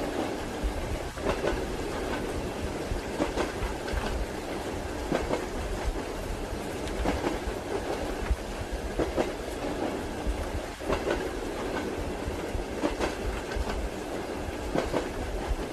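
Passenger train rolling along with a steady low rumble, its wheels clacking over rail joints in a regular clickety-clack, a cluster of knocks about every two seconds.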